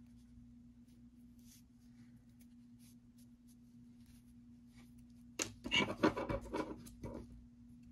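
Hands handling the knitted pumpkin and its yarn: a burst of rubbing and scratching lasting under two seconds, starting about five and a half seconds in, over a faint steady hum.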